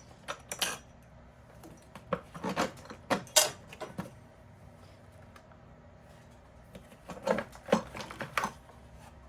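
Scattered clicks and light knocks of hands unfastening and lifting off a motorcycle's air filter housing cover. There is a cluster of clatter a couple of seconds in and another near the end, with a quieter stretch between.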